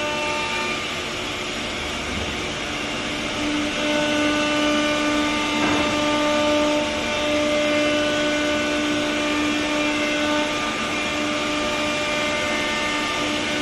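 Four-head ATC CNC wood router machining MDF panels: a steady high whine from the spindles over a dense rushing noise, with the whine growing stronger about four seconds in.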